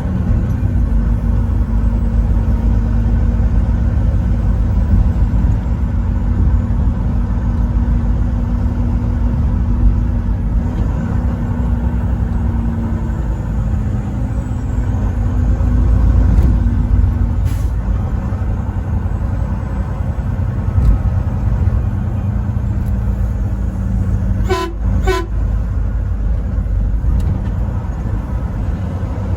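Steady drone of a truck's engine and road noise on the highway, with two quick horn toots close together near the end.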